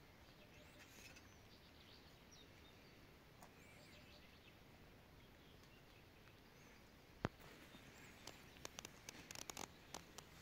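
Faint rural outdoor quiet with a few distant bird chirps. A single sharp click comes about seven seconds in, followed by a run of light clicks and rustles near the end.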